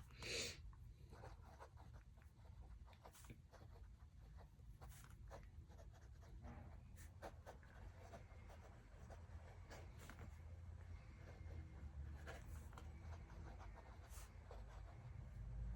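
Faint, irregular scratching and tapping of someone writing, with a brief louder swish about half a second in, over a low room hum.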